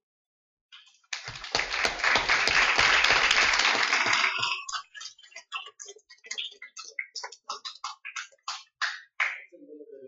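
Audience applause. A burst of dense clapping starts about a second in and lasts a few seconds, then thins to scattered single claps that die away.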